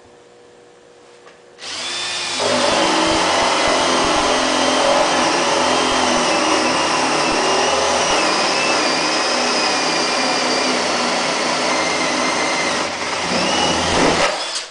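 Milwaukee 18-volt cordless drill at high speed boring a dull 3/4-inch spade bit through solid red oak. It starts about two seconds in, runs steadily and loud with a motor whine over the cutting noise for about twelve seconds, and stops near the end as the bit comes through the wood.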